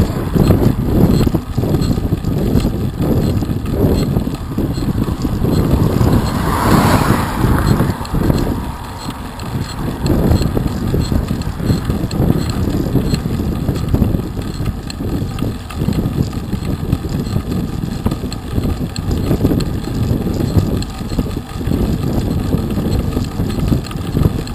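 Wind buffeting the microphone of a bicycle-mounted camera over the rumble of road-bike tyres on tarmac, with a brief louder whoosh about seven seconds in.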